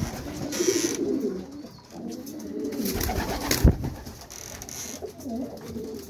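Racing pigeons cooing throughout, with bursts of wing flapping as birds flutter up and land, and one sharp clap about three and a half seconds in.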